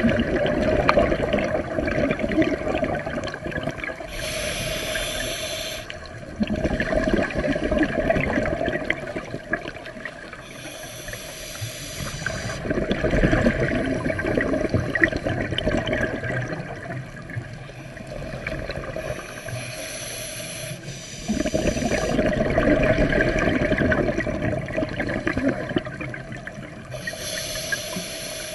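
Scuba diver breathing through a regulator underwater: a hissing inhale of about two seconds, then a longer, louder rush of exhaled bubbles. The cycle repeats about every eight seconds.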